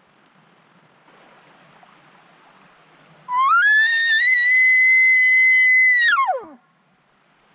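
Elk bugle: a single high whistling call that climbs in pitch, holds steady for a couple of seconds, then drops away sharply at the end.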